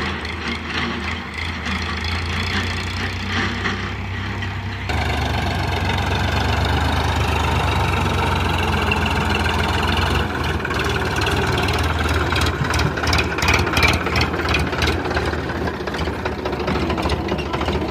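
Sonalika tractor's diesel engine running as it pulls a loaded trailer. It becomes louder and closer about five seconds in, with rapid clattering knocks between about ten and fourteen seconds in.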